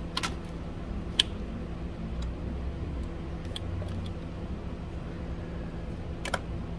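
Scattered sharp clicks and taps of hand tools against the plastic hose fittings and connectors in a car's engine bay, the sharpest about a second in and another near the end, over a steady low hum.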